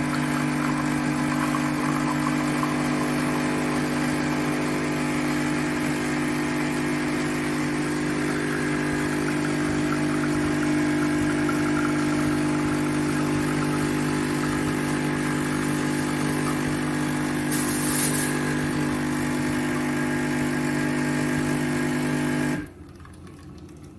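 De'Longhi Magnifica bean-to-cup coffee machine running, a steady mechanical hum that stops abruptly near the end.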